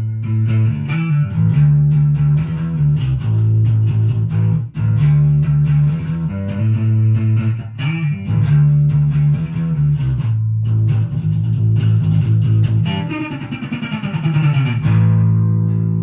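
Fenderbird electric bass (mahogany Thunderbird-style body, bolt-on Fender neck) played through an amplifier: a repeating riff of low notes, a downward slide about 13 seconds in, then a held ringing note.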